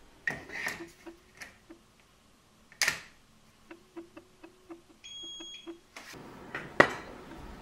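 Metal clicks and clatter as a stainless pressure cooker lid is set on and locked, the loudest click about three seconds in. Then an induction hob's touch controls beep in a quick series of about eight short beeps as the power is set, ending in a brief higher beep. About six seconds in a steady hum starts, and a sharp click follows.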